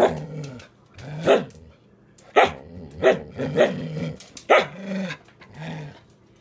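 Samoyed barking about eight times in short, sharp barks mixed with lower, growly calls.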